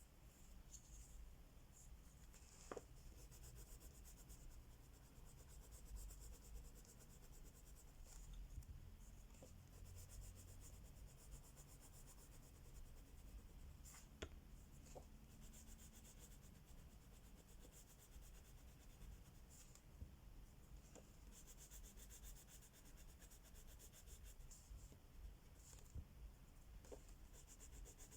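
Crayola wax crayon rubbing across a coloring-book page in quick back-and-forth strokes, faint, with a few light taps along the way.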